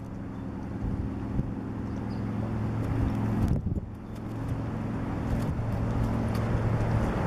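A motor vehicle's engine running with a steady low hum. It grows louder, dips briefly about three and a half seconds in, then builds again.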